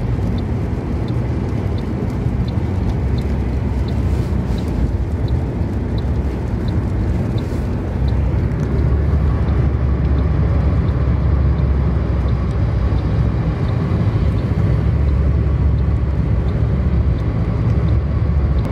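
Steady road and engine noise inside a car's cabin at motorway speed, a low rumble that gets louder about halfway through. For the first half a faint light tick repeats about every two-thirds of a second.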